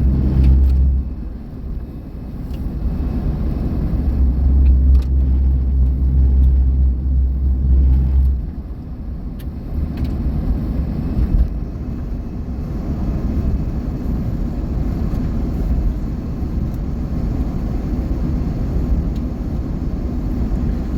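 Inside a moving car: a steady low rumble of engine and tyres on the road, louder for the first second and again for a few seconds before easing off.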